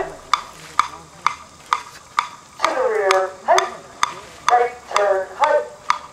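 A marching drill: a steady beat of sharp clicks, a little more than two a second, keeps the marching tempo, with voices shouting out calls over it twice.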